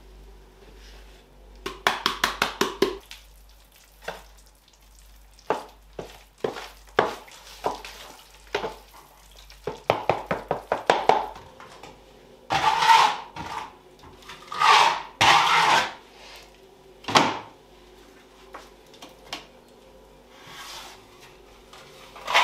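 Hand work with lime plaster. First come quick clicks and knocks of powder being scooped and mixed in a plastic tray, then from about halfway several long scrapes of plaster being spread on a wall.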